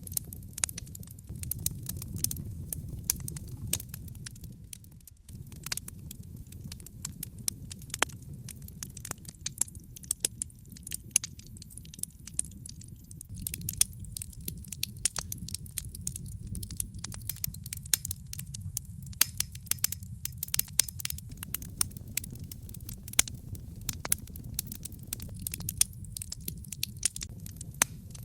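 Wood logs burning in a fireplace: frequent sharp crackles and pops, irregular and busiest around the middle, over a steady low rumble of the flames.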